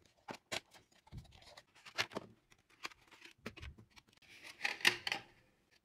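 Cardboard box and packaging handled during unboxing: scattered light clicks and scrapes as the flap is opened and the contents are lifted out, with a short burst of rustling near the end.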